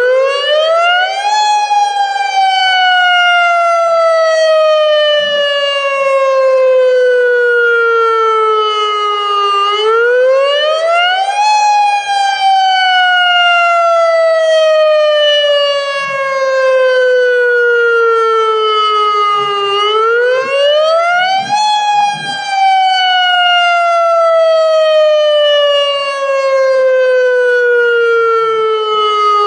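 AHAB tsunami warning siren sounding its wail tone, the tone used in real emergencies. Each cycle the pitch rises quickly over about a second and a half, then falls slowly over about eight seconds. The cycle repeats about every ten seconds.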